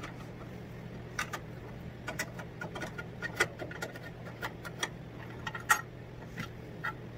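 A GearWrench universal spline wrench clicking and ticking on the square fasteners of an industrial washer's water valve: a dozen or so sharp, irregular metallic clicks, one louder about two-thirds through, over a steady low hum.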